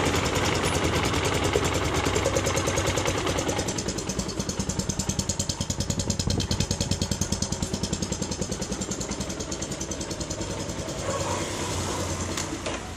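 Kasinski CRZ 150 SM's single-cylinder engine running. It is a little busier for the first few seconds, then settles into a steady idle with an even pulse.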